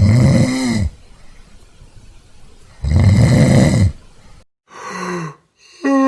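A person snoring: two loud, rasping snores about three seconds apart. A shorter, fainter sound follows, and near the end a voice-like moan falling in pitch begins.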